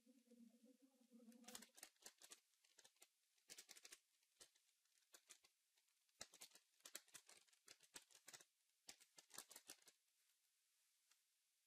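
Faint computer keyboard typing: quick runs of key clicks in several bursts, stopping about ten seconds in. A faint low hum runs underneath for the first second and a half, then stops.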